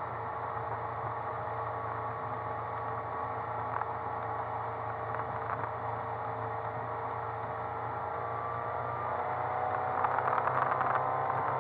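MerCruiser 140 hp 3.0 L four-cylinder sterndrive engine running steadily as the boat cruises, heard from inside the cabin. The pitch rises slightly about nine seconds in, and louder rattling and knocks join near the end.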